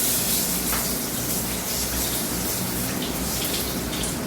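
Chicken pieces frying in hot oil in a pan, a steady sizzle.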